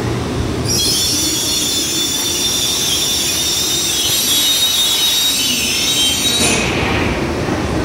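Shinkansen platform departure bell ringing: a continuous electric ringing of many high tones that starts about a second in and cuts off suddenly near the end. A steady low hum runs under it.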